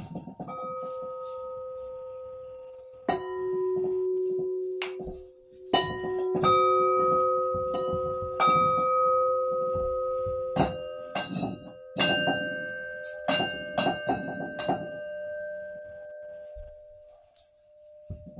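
Bronze chime bells of a bianzhong set struck one at a time, about a dozen strikes at several different pitches. Each bell rings on long after it is hit, overlapping the next, and the strikes come faster toward the end before the last tones die away.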